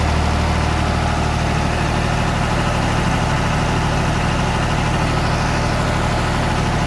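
Air-cooled Deutz diesel engine of a 30 kVA generator set running steadily at constant governed speed, just after starting. It is an even, loud engine drone with no change in speed.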